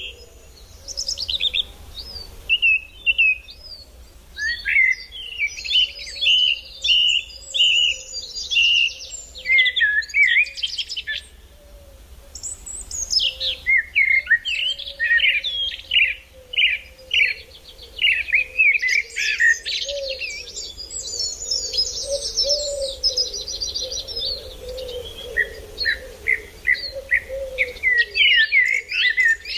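Birds chirping and singing in quick, overlapping high-pitched phrases and trills, with a fainter low wavering tone beneath.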